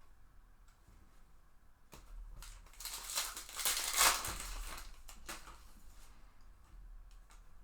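A foil trading-card pack wrapper crinkling and tearing as it is opened. The noise swells over about three seconds, loudest in the middle, with a few small clicks around it.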